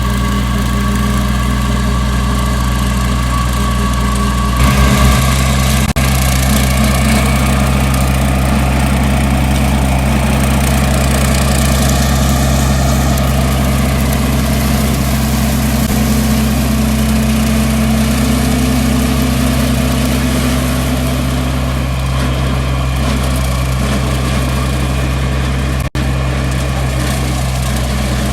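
An engine running steadily at a constant speed, an even low hum with a slight change in tone about five seconds in.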